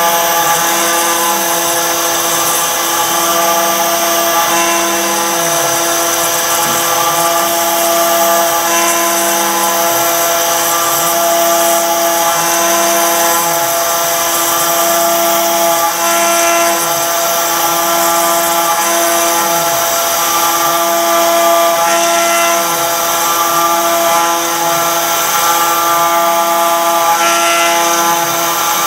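CNC router spindle running steadily with a whine while its bit cuts into stone, on a Torchmate RouterMate table. Under it a lower tone rises and falls every second or two as the machine moves the bit back and forth along the cut.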